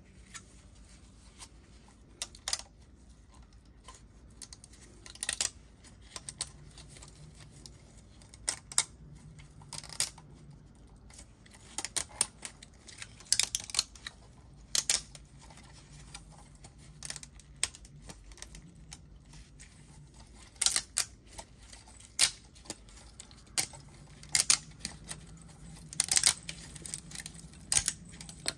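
Articulated 3D-printed PLA+ dragon being flexed and twisted by hand, its many jointed plastic segments clicking and rattling against each other in irregular clusters of sharp clicks.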